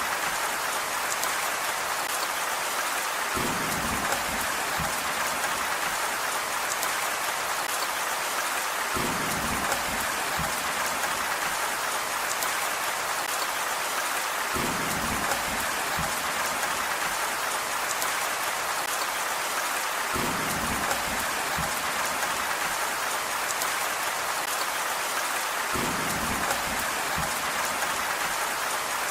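Steady rain falling on a surface, an even hiss of drops. About every five and a half seconds a brief cluster of deeper drips or knocks joins in, repeating evenly like a loop.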